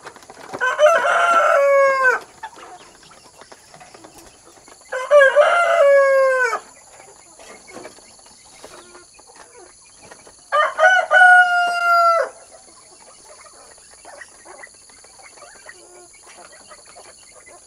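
A rooster crowing three times, a few seconds apart; each crow lasts about a second and a half and drops in pitch at the end.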